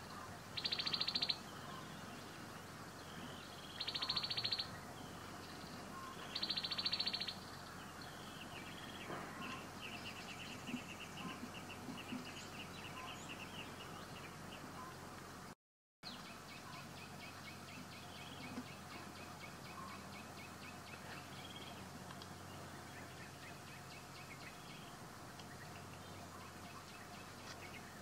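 Outdoor animal calls. Three short, loud, buzzy trills come in the first seven seconds, followed by long runs of rapid, fast-pulsed trilling over a faint steady hum.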